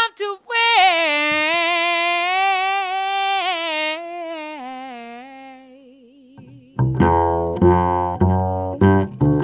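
A woman sings one long note on her own, held with vibrato, which wavers and fades out. About seven seconds in, an upright double bass begins a run of low plucked notes, about two a second.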